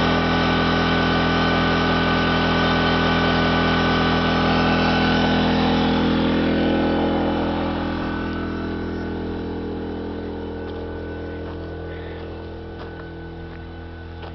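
Power Horse 2300 portable generator running steadily with an even engine hum, growing gradually fainter from about seven seconds in.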